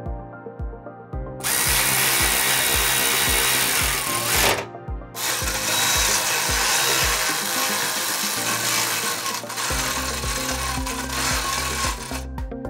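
Cordless electric ratchet running under load, spinning a 3/8 socket on an extension to run nuts down tight on a steel cargo basket. It runs in two goes, a brief stop about four and a half seconds in, then a long run that ends near the end. Background music with a steady beat plays underneath.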